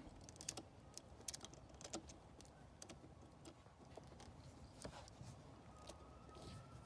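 Faint, scattered clicks and light taps of a test lead being handled and clipped onto a wiring terminal.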